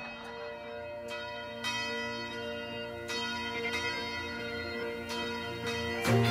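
A church bell ringing, struck several times at uneven intervals, each strike ringing on into the next.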